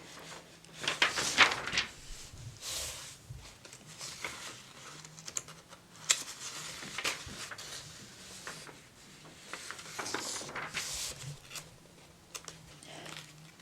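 Paper pages of a mail-order catalog being handled and turned, in a series of soft rustling swishes with quieter stretches between them.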